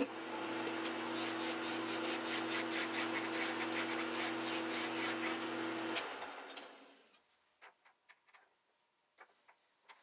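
Metal lathe running with a fine file rubbing in quick, even strokes against the spinning steel shaft, to bring it to a light press fit. About six seconds in the lathe is switched off and runs down, followed by scattered light clicks of handling.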